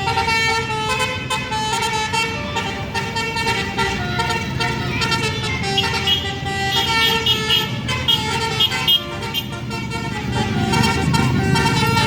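Basuri musical bus horn playing a melody in held notes that step from pitch to pitch, with a low rumble growing louder near the end.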